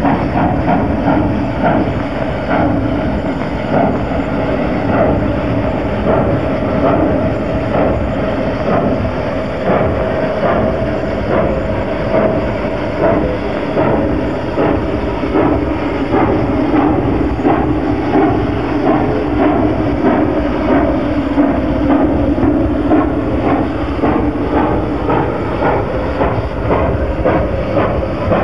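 Narrow-gauge sugar-mill steam train running steadily: a continuous drone whose pitch drifts slowly, with a regular beat about twice a second.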